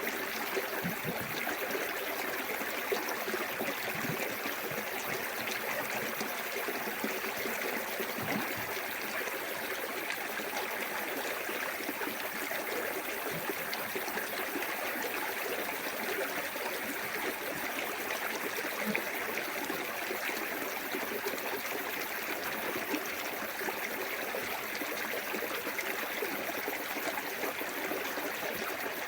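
Small waterfall on a clear forest stream, water splashing and running steadily over rocks.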